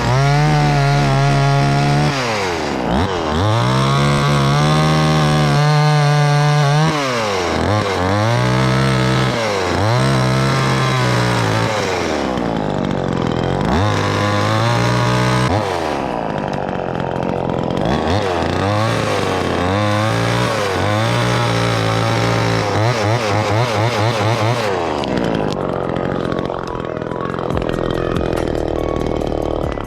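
Chainsaw cutting maple limbs, its engine revving up to full speed and dropping back again and again with each cut. Near the end the revving stops and a lower, steadier sound remains.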